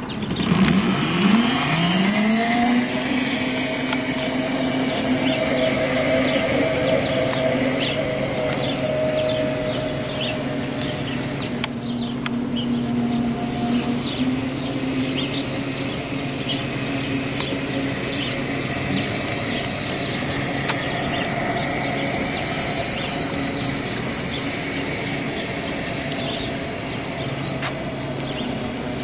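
Kunray 3000 W, 72 V brushless motor of an electric go-kart whining as it pulls away in its low speed setting. The whine rises in pitch over the first two seconds or so, then holds a steady pitch as the kart laps at the low mode's top speed of about 10 mph.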